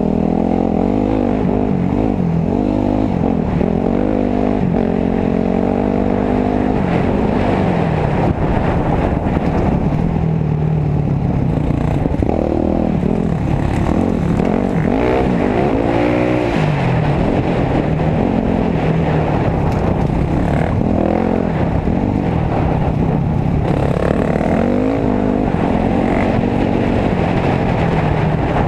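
Dirt bike engines running on a trail ride, the pitch swinging up and down again and again as the throttle is opened and closed through the gears.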